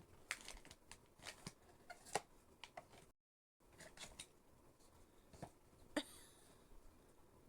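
Faint, scattered clicks, taps and light rustles of hands handling figure boxes and packaging. The sound drops out to dead silence for about half a second a little after three seconds in.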